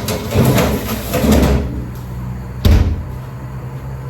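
Kitchen handling noise: a rustling, scraping stretch, then a single sharp bang about two and a half seconds in, like a door or lid being shut.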